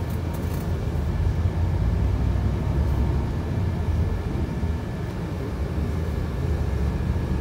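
Steady low rumble of a tour coach's engine, heard from inside the passenger cabin.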